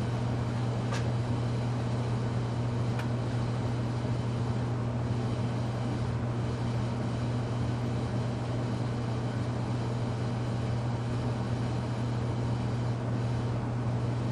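Casablanca Delta II ceiling fan running on low speed: a steady low motor hum over a soft haze of noise, with a couple of faint ticks early in the run.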